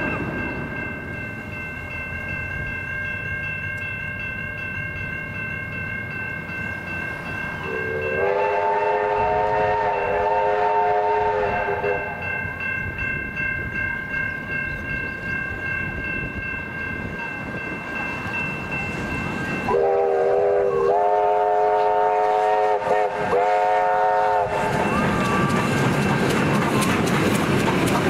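Victorian Railways A2 class steam locomotive A2 986 sounding its chime whistle: one long blast about eight seconds in, then a run of blasts with short breaks from about twenty seconds in. Near the end the locomotive and its train pass close with loud rolling wheel noise. A level-crossing warning bell rings steadily through much of it.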